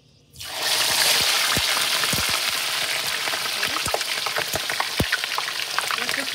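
A whole seasoned fish going into hot oil in a pan: a sudden loud sizzle starts about half a second in, then steady frying with scattered pops and crackles.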